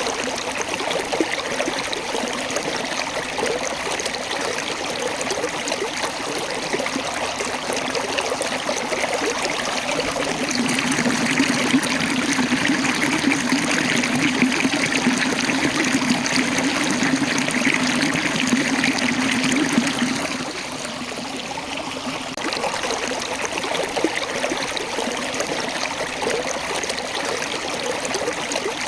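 Small waterfall: water rushing and splashing over rocks in a steady stream. It swells louder for about ten seconds midway, then drops back suddenly.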